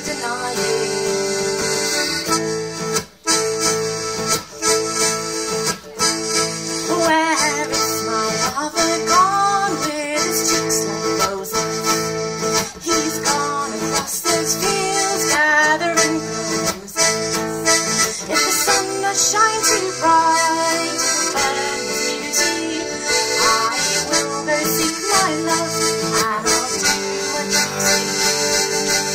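Accordion and acoustic guitar playing an instrumental folk tune, the accordion carrying the melody over the strummed guitar.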